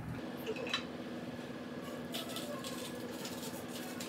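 Soft kitchen handling noises of food prep: a run of quick light scrapes and rustles in the second half. Under them is a steady low hum that starts just after the beginning.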